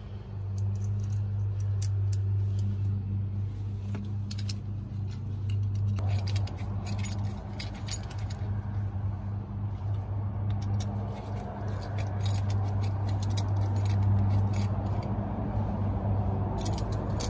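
Small metal parts clicking and clinking as an aftermarket boost control solenoid, its bracket and fittings are handled and fastened with a hex key, over a steady low hum.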